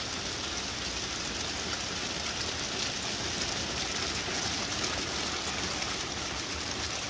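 Small hailstones falling steadily, a dense patter of tiny impacts on the lawn and patio deck.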